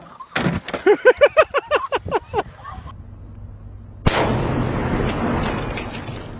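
A person's voice in a quick run of short, rising-and-falling cries. After a brief lull, a steady rushing noise starts abruptly about four seconds in.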